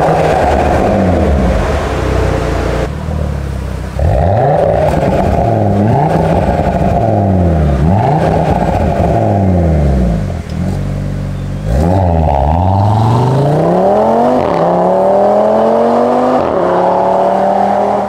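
Audi RS3 8V.2's turbocharged 2.5-litre five-cylinder engine through an Fi Exhaust valvetronic catback with its valves open, loud: held at high revs, then revved in repeated blips that rise and fall about every two seconds. After a short break it accelerates hard, the pitch climbing steadily, dropping once for an upshift near the end and climbing again.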